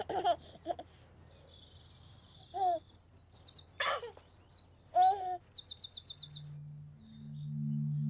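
Birds chirping and singing, with a quick high trill about three-quarters of the way through, mixed with a baby's short giggles and coos. Soft low music notes come in near the end.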